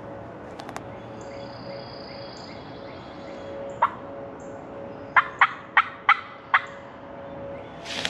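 Turkey calling: one loud note in the middle, then a run of five loud, sharp notes about a third of a second apart.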